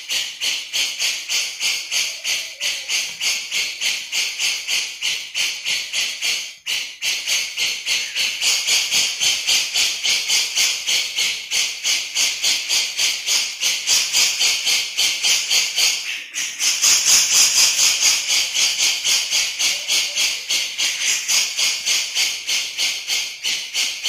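Grey-cheeked bulbul (cucak jenggot) giving its 'besetan' chatter: a high, scratchy note repeated about three times a second without a break.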